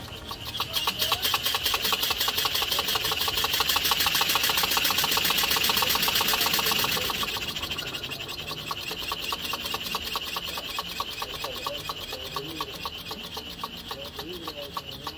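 Homemade three-cylinder triple-expansion steam engine running on its new valve gear, a rapid, even mechanical beat of valve-gear clatter and exhaust. It runs a little quieter from about halfway.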